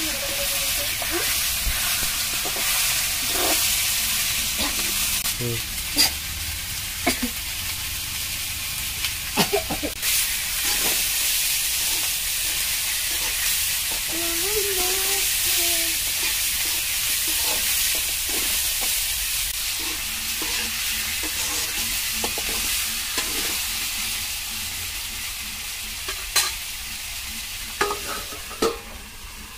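Chicken curry frying in a metal kadai, stirred with a metal spoon: a steady sizzling hiss with a few sharp clinks of spoon on pan. The sizzle grows a little quieter near the end.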